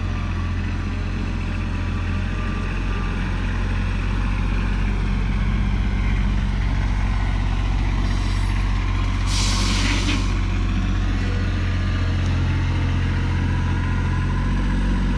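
Tractor engine running steadily while digging a trench with its bucket. A short hiss of about a second comes about nine seconds in.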